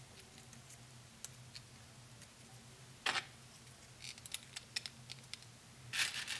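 Small 3D-printed PLA plastic track pieces clicking and clattering as they are handled and fitted together, with a louder clatter about three seconds in and again near the end as hands dig through the pile of pieces.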